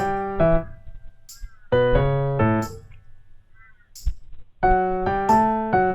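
Background music: electric piano playing short chords in bouncy groups, a new phrase about every three seconds, with light high ticks in between.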